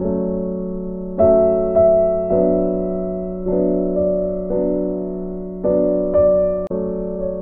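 Background music: slow piano chords, each struck and left to fade.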